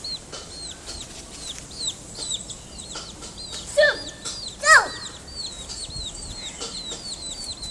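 Baby chicks peeping over and over, short high falling peeps a few times a second. Two louder cries slide down in pitch about four seconds in, a second apart.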